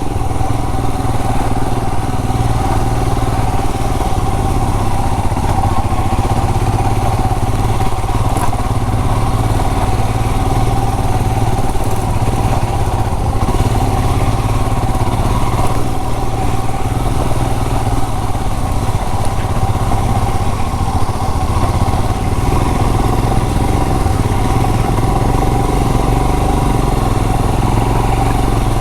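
Royal Enfield Himalayan BS6's 411 cc single-cylinder engine running steadily under way as the motorcycle is ridden along an off-road track.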